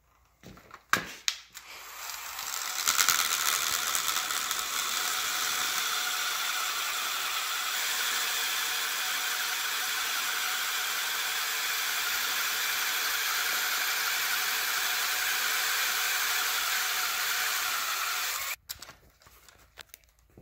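A few clicks, then a DeWalt 20V cordless drill runs steadily, driving a long bit through a guide bushing into a head bolt hole in an aluminium LS engine block. This is the hole being drilled out for a thread repair. The drill stops abruptly near the end.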